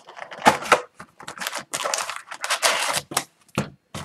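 A cardboard retail box of hockey card packs being torn open and the wrapped packs pulled out. It makes a series of short tearing, rustling and crinkling noises with brief pauses between them.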